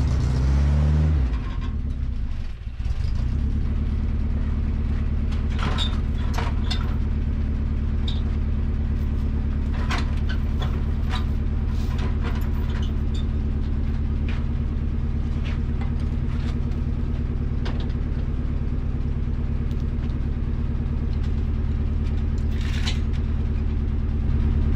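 A truck engine idling, its pitch falling over the first second or so as the revs come down, then running steadily. Scattered light clicks and knocks sound over it.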